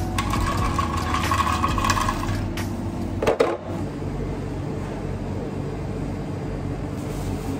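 Coffee-shop bar noise: a steady hum of machines with scattered clinks and clatters of cups and equipment, and a brief loud sound a little past three seconds.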